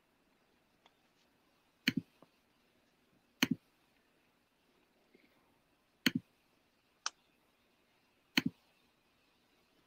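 Computer mouse clicking: about five short, sharp clicks, some in quick pairs, spaced a second or two apart, over quiet room tone.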